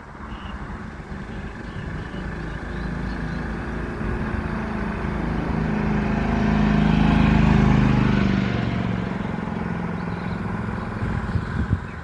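A motor vehicle's engine passing by on a city street. It grows louder to a peak about two-thirds of the way through, then fades away.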